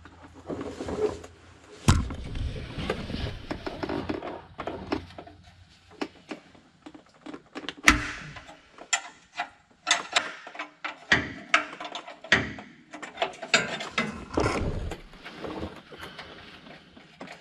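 A wrench clicking and clanking on an oil-pan drain plug as it is worked loose, with two sharper metallic knocks about two seconds and about eight seconds in and a run of quick clicks later on.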